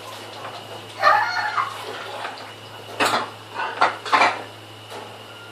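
Dishes and cutlery clattering as they are washed by hand in a kitchen sink, with a burst of clatter about a second in and several sharp knocks between three and four and a half seconds in.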